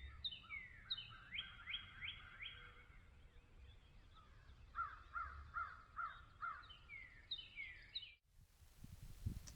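A bird calling in runs of quick, repeated, downward-sliding notes, three runs of four or five notes each. About eight seconds in, the sound cuts off abruptly to a steady hiss, and low thuds follow near the end.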